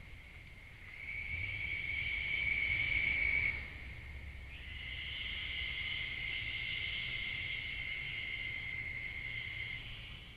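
Night insects trilling steadily at a high, even pitch, in two stretches: from about a second in to about three and a half seconds, then again from about four and a half seconds on, cutting off suddenly at the end.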